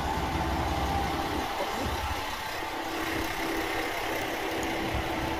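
Isumi Railway Kiha 350 diesel railcar's engine idling, a steady hum with a low rumble.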